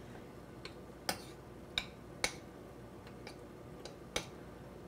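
Metal spoon clicking against a saucepan while stirring melting white chocolate: a handful of light, irregular clicks.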